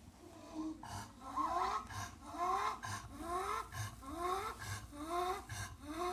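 English bulldog breathing with a short, rising, squeaky wheeze on each breath, repeating about every 0.8 seconds from about a second in. This is the newly developed rattle in her airway that she is being taken to the vet for.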